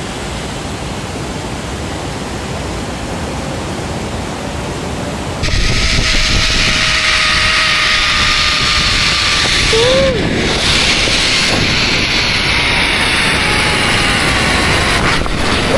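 A steady rush of falling water. About five seconds in, a louder rush of wind sets in as a zip-line trolley runs along the steel cable, its wheels giving a thin whine that slowly drops in pitch.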